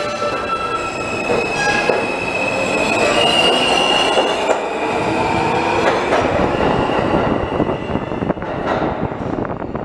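New York City Subway F train pulling out of an underground station: the steel wheels run along the rails with high squealing tones, and a whine rises in pitch as it gathers speed. The sound fades as the last car passes, about eight seconds in.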